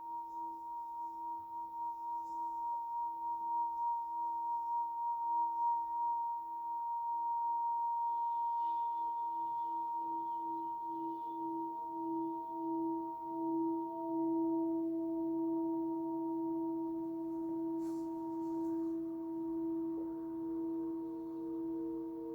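Himalayan singing bowls being sung by rubbing around the rim, holding steady pure tones that waver in a slow pulse. Another bowl's tone joins about ten seconds in, and a third near the end, with a light tap as it begins.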